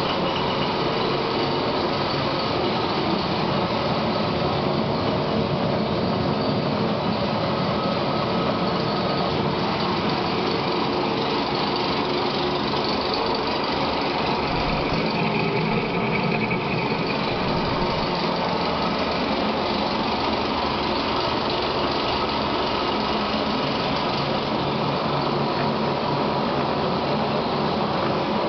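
Large vertical turning lathe running steadily: an even machine hum from its drive motor and gearing, with steady whining tones over a mechanical rumble.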